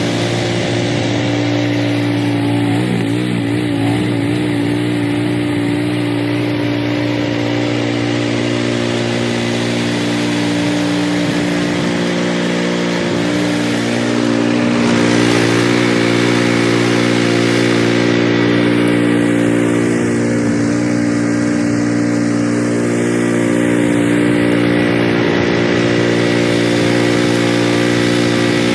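Cub Cadet 3X 30HD three-stage snowblower running steadily under load, a constant engine hum with a rushing noise over it that grows slightly louder about halfway through.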